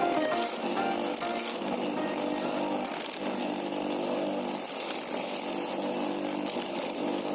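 Homemade corn sheller driven by a converted water-pump motor, running steadily with a continuous mechanical rattle and hum.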